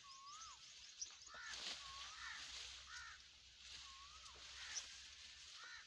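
Faint bird calls: short whistled calls that dip and rise or arch, about one a second, with small high chirps and a few faint clicks.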